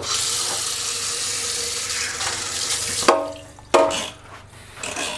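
Kitchen sink tap running as a hand is washed under it, a steady rush of water that stops about three seconds in. It is followed by two short, loud squeaks.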